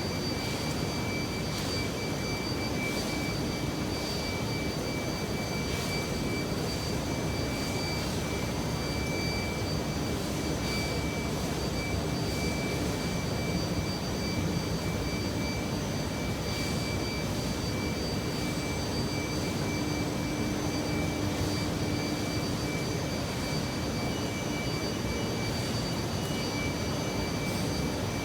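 Rubber-strip extrusion and microwave vulcanization line running: a steady, even machinery rush with a few constant high-pitched whines over it.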